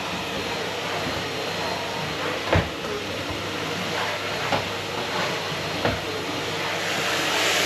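Household vacuum cleaner running with a steady rushing noise, with a few short knocks, the loudest about two and a half seconds in.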